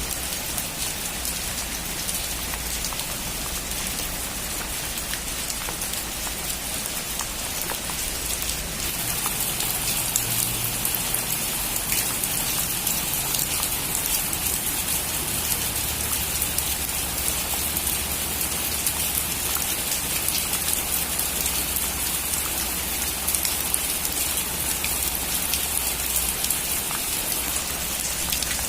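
Steady rain falling on a roof, a dense patter of drops ticking. It grows a little louder about nine seconds in.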